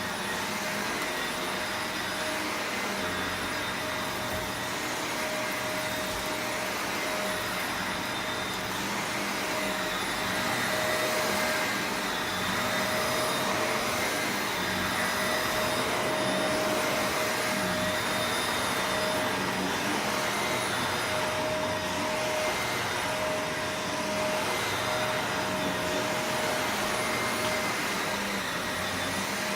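Shark Rotator Professional Lift Away upright vacuum running steadily on carpet, a constant motor whine over airflow rush, a little louder for a stretch in the middle as it is pushed over the floor.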